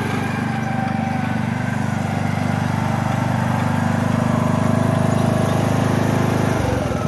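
John Deere D105 riding lawn mower's engine running steadily under way, driving across the lawn; the sound changes abruptly shortly before the end.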